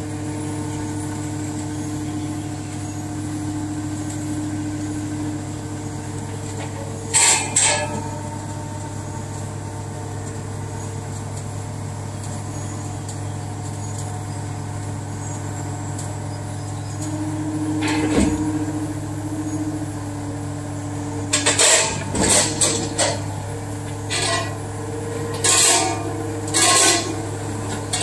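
Caterpillar 299D3 XE compact track loader's diesel engine running steadily as it drives on its steel tracks along a trailer deck. Sharp metallic bangs and clanks cut in twice, then come in a quick cluster over the last several seconds as the machine tips over the trailer's end onto the ramps.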